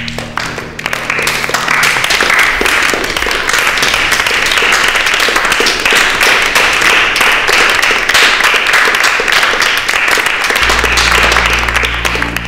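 Audience applauding, the clapping building over the first second or two and then holding steady. Low held music notes sound under it at the start and come back near the end.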